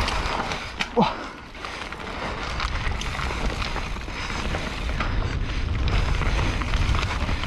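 Mountain bike descending a loose dirt trail: wind buffeting a helmet-mounted action camera's microphone over tyre noise on dirt and a steady clatter of small knocks from the bike, with a brief rising squeal about a second in.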